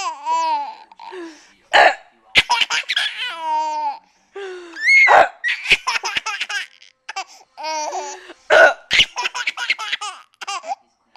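Baby laughing in repeated fits, each a run of quick high-pitched pulses, with short pauses between them.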